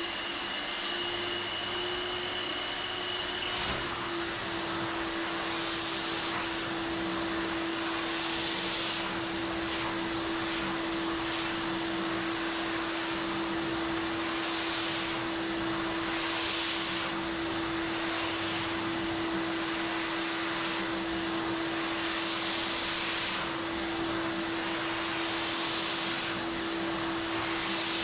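A vacuum motor running steadily with a constant hum. The hiss swells every couple of seconds as the nozzle is pushed along the rug.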